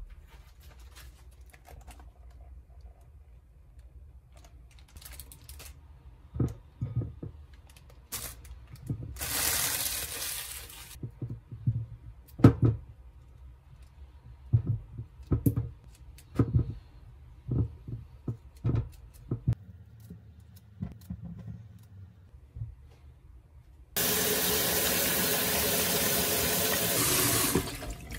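Knocks and clatters of a bowl and a bunch of grapes being handled in a stainless-steel sink, with a short hiss about nine seconds in. Near the end the kitchen tap runs steadily for a few seconds, filling the bowl of grapes with water.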